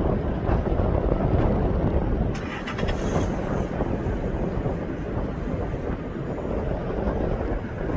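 Wind buffeting the microphone, a steady low rumble, with a short run of clicks about two and a half seconds in.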